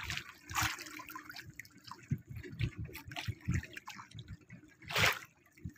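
Water lapping and slapping against the hull of a small wooden outrigger boat, with low irregular knocks and two louder splashes, about half a second in and near the end.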